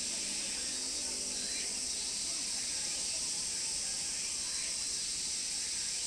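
Steady high insect drone of a summer outdoor ambience, with faint distant voices underneath.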